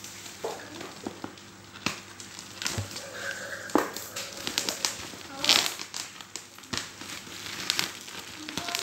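Black plastic bubble wrap being peeled off a cardboard parts box and crumpled by hand, crinkling with irregular sharp clicks.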